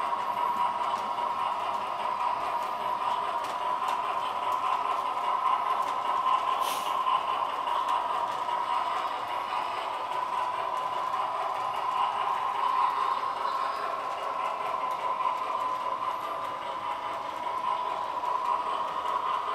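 A DCC model train running steadily around the layout track: a steady, unbroken running hum, with a short hiss about seven seconds in.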